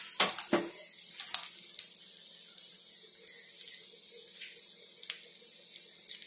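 Mustard seeds, cumin and dals sizzling and crackling in hot oil in a small tempering pan. There are scattered small pops, and two sharp knocks near the start as the pan is handled.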